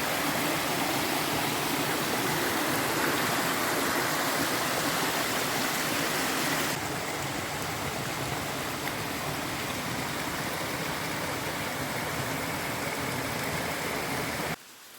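Steady rush of flowing water, like a stream or small waterfall. The sound changes abruptly about halfway through to a slightly quieter, duller rush, then drops away sharply just before the end.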